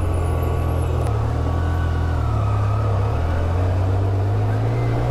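Side-by-side UTV engine running steadily while driving, its low drone wavering slightly in pitch with the throttle.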